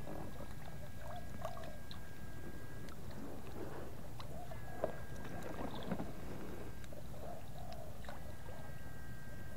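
Water sloshing and splashing as an electrofishing rig is worked through shallow water. A high, steady electronic whine from the fish stunner switches on three times, for two to three seconds each.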